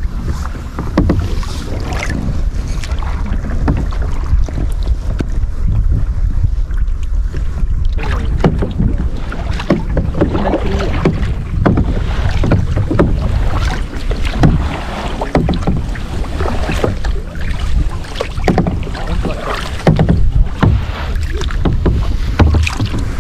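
Sea kayak paddling: a double-bladed paddle dips and splashes into calm sea water in repeated, irregular strokes, with wind rumbling on the microphone.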